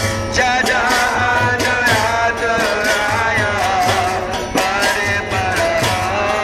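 Devotional bhajan sung by a male lead voice through a microphone. Brass hand cymbals (kartals) clash in a steady rhythm and mridanga drums beat underneath.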